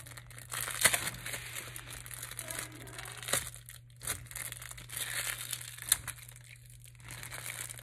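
A new fidget toy's packaging being torn open by hand: irregular crinkling and tearing, with a few sharper snaps.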